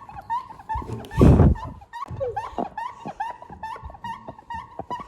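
Rapid, evenly repeated short squeaks, several a second, with a loud dull thump about a second in.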